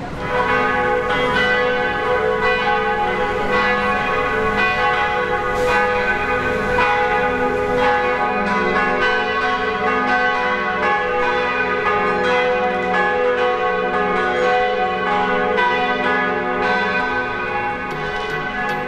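Several church bells ringing together in a continuous peal, their tones overlapping and renewed by repeated strikes.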